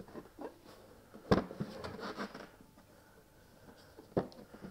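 Handling noises from the automatic pet feeder unit as it is turned and examined: a sharp knock about a second in and another near the end, with scattered light clicks and rustles between.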